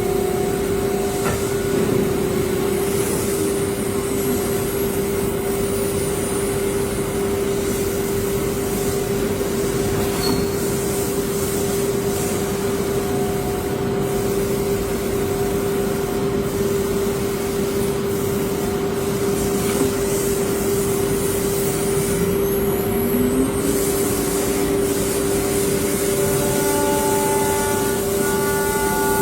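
CNC router running with its air-cooled spindle spinning, a steady whine over machine and air noise. About three quarters of the way through, a second, lower tone rises and then holds.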